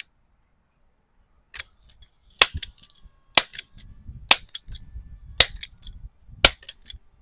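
Vintage Rochester Precision multi-pump air rifle being pumped up: about six sharp clacks of the pump lever, roughly one a second, with a low rumble between strokes.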